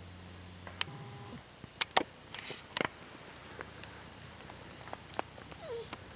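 Footsteps and trekking-pole taps on a trail of dry leaves: scattered, irregular crunches and sharp clicks, loudest about two seconds in. A low hum stops about a second in, and a short falling whine sounds near the end.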